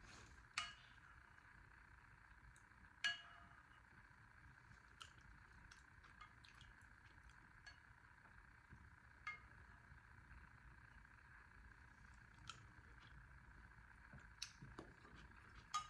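Utensils clinking against a soup bowl: a couple of sharp clinks with a short ring, then scattered lighter taps, over a faint steady room hum.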